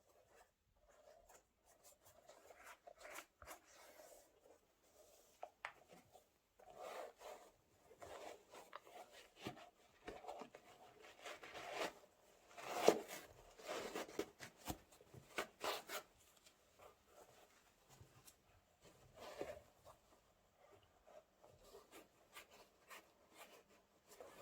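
Quiet rustling, rubbing and soft taps of trainers and their packaging being handled, coming in scattered bursts and busiest about halfway through.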